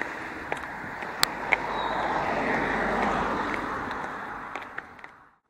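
Stiletto heels clicking on an asphalt path as a woman walks, while a passing vehicle swells up and fades away in the middle. The sound cuts off abruptly near the end.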